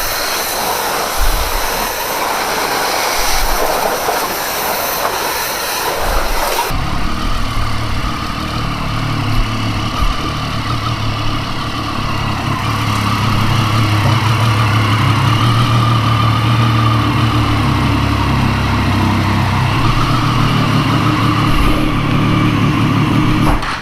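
Triumph Street Triple motorcycle riding at steady speed: for the first several seconds mostly wind rush, then, after a sudden change, the inline-three engine's steady running note dominates.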